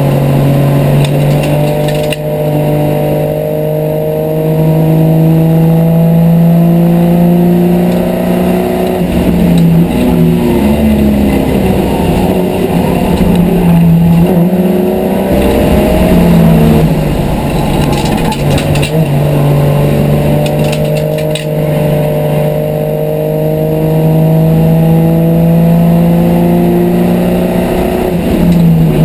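Race car engine at speed, heard from inside the cockpit. Its note is loud and climbs slowly along the straights, and twice in the middle the revs drop and climb again.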